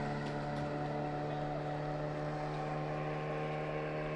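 Boat motor running at a steady speed, a constant engine drone.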